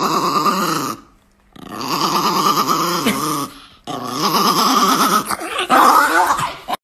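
A chihuahua growling in three long stretches, its pitch wavering, with short pauses between them.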